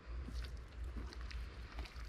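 Faint soft squishing and light clicks as raw meat is cut off with a knife and pressed down into a hollowed-out pumpkin.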